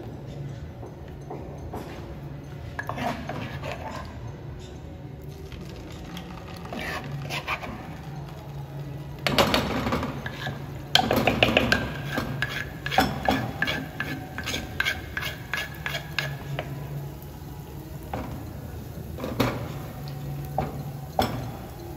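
Metal spoon scraping and clinking against a clay mortar while scooping akara bean batter, with spoonfuls of batter dropping into hot oil and sizzling. The clatter comes as many short clicks and scrapes, loudest around the middle.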